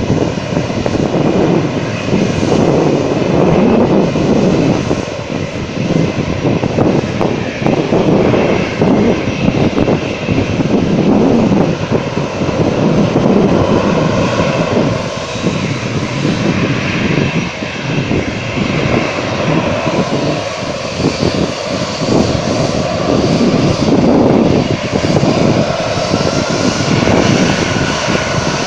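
Jet engines of a four-engine Edelweiss Air Airbus A340 airliner running as it taxis. A steady rumble with a higher whine above it, swelling and easing in loudness.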